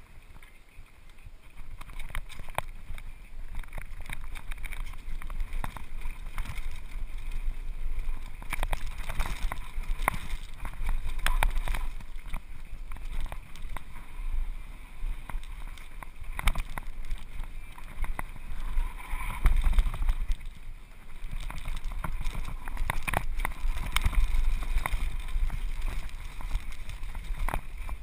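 Mountain bike riding down a rough dirt trail: wind buffets the microphone with a rumble that swells and dips, over the hiss of tyres on dirt and a constant clatter of clicks and rattles from the bike over bumps. It starts quieter and picks up about a second and a half in as the bike gets going.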